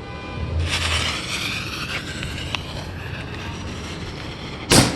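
Fuse of an Excalibur canister shell hissing as it burns for a few seconds, then a single sharp bang near the end as the lift charge fires the shell out of its mortar tube.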